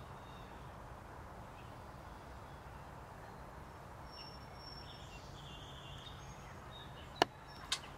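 Quiet, steady background hiss of outdoor ambience, with faint thin high tones in the middle. A sharp click sounds near the end, followed by a softer one.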